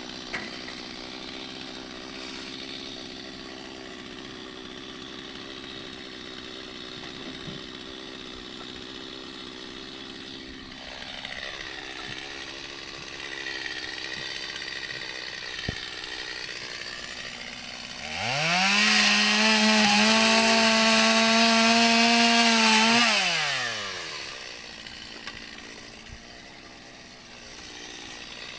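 Two-stroke chainsaw running at a low idle, then revved to full throttle about two-thirds of the way in and held there for about five seconds while it cuts through the steel of a scrap air-conditioner coil. Then it drops back down.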